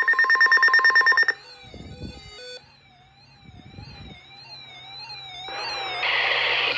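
Weather alert radios sounding their alarm tones for a weekly test: a rapid beeping tone for about a second, then a quieter warbling, siren-like tone. The hiss of the radio broadcast rises near the end.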